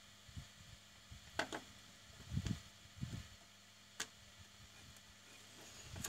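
Soft knocks and small sharp clicks from a circuit board and soldering iron being handled and touched together during soldering. The clicks and low thumps come irregularly, a few seconds apart, over a faint steady hum.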